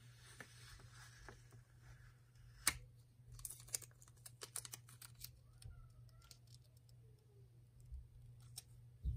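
A paper planner sticker being peeled up and pressed back down by hand, making faint crinkles and small clicks. There is one sharper click about two and a half seconds in, then a quick run of little clicks for a couple of seconds.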